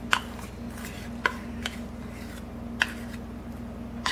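Metal spoon scraping peanut butter out of a measuring cup into a glass mixing bowl, clinking against the cup and bowl: a handful of short sharp clinks about a second apart, over a faint steady hum.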